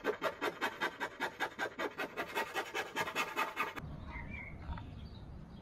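Hand sanding tool rubbing the edges of drilled holes in a multiplex plywood board in quick back-and-forth strokes, about five a second, to round off the sharp edges. The strokes stop about four seconds in.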